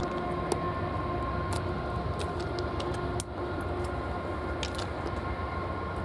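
Approaching diesel freight locomotive heard from a distance: a steady low rumble with a faint steady whine over it.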